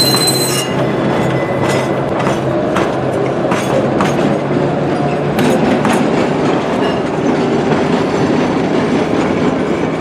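Narrow-gauge railroad passenger cars and a caboose rolling on the track, with a brief high wheel squeal at the start and irregular wheel clicks over the rail joints.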